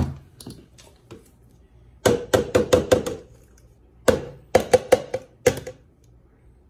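Hand blender's shaft knocked several times against the rim of a clear plastic blending beaker to shake off thick coriander-leaf paste, the motor off. Two runs of quick knocks, about two seconds in and again about four seconds in.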